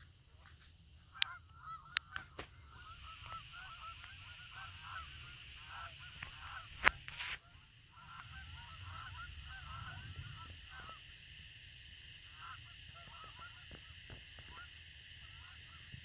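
A large flock of geese calling in flight: many short, overlapping honks throughout, over a steady high-pitched buzz. A few sharp clicks come in the first seconds, the loudest about seven seconds in.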